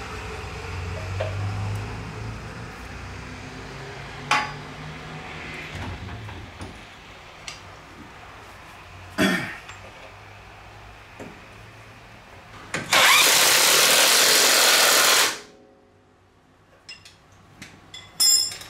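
A few sharp metal knocks as a monotube shock absorber is fitted up through a truck's front coil spring. About 13 seconds in comes the loudest sound: a power tool runs for about two seconds and cuts off, tightening the shock's upper mount nut.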